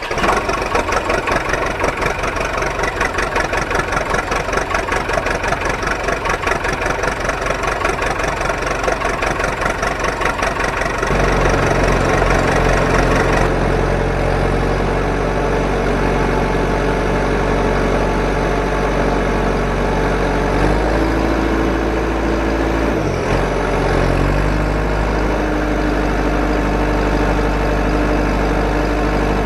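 Engine idling, with a fast, even pulsing chug for about the first eleven seconds, then changing to a steadier, deeper drone.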